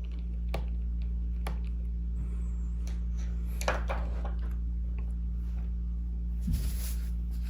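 A steady low hum, with faint scattered clicks of a Phillips screwdriver turning the small screws out of a MacBook Pro's aluminium bottom case, and a short scrape near the end.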